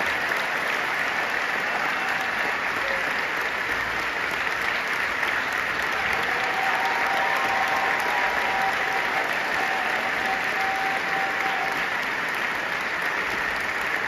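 Large opera-house audience applauding steadily.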